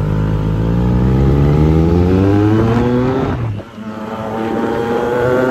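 Motorcycle engine accelerating. Its pitch climbs steadily for about three and a half seconds, cuts back sharply, then climbs again.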